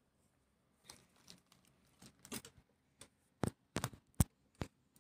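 Clear plastic bag holding a small toy car being handled: soft scattered crinkles, then several sharp clicks and taps in the last two seconds.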